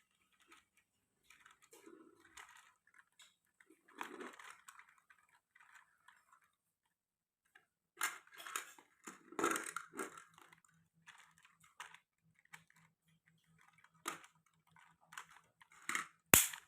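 Small plastic RC car parts being handled and worked on by hand: scattered light clicks and rustling, with a sharp click near the end.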